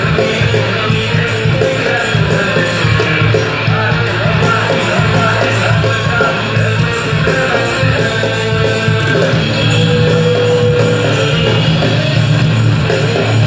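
Rock band playing live, electric guitars, bass guitar and drum kit together in a steady rock groove.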